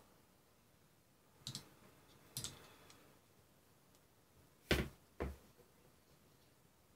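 Small clicks and knocks of an FPV drone's brushless motor and arm being handled: two faint clicks about a second apart, then two louder knocks half a second apart about five seconds in.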